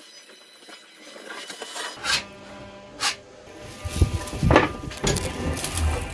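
Sharp knocks and rubbing as a thin plastic wall panel is handled and pressed into place in a small enclosure, with background music.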